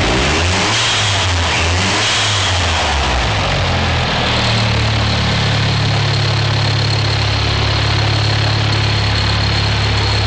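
Car engine running, its pitch rising and falling with light throttle for the first few seconds, then settling into a steady idle with a thin high whine.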